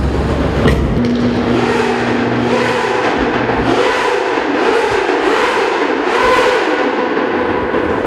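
A superbike engine revved up and down over and over, about once a second, over a cheering crowd in a large hall.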